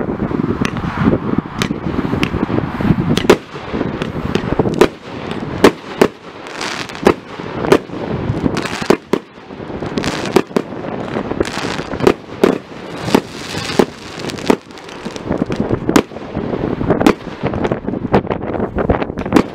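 Fireworks display: aerial shells bursting overhead in quick succession, dozens of sharp bangs, often several a second, with a continuous rush of noise between them.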